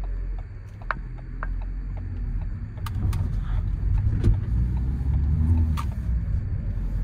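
In-cabin drone of a Ford Transit Courier driving on the road, its 1.5-litre diesel and tyres making a steady low rumble that grows louder about two seconds in. A few light ticks come early, and several sharp knocks come in the middle.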